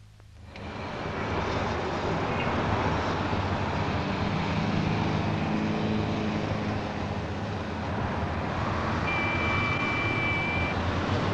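City street traffic: a steady din of vehicle engines and traffic that fades up about half a second in. Near the end a short high whistle-like tone sounds for about a second and a half.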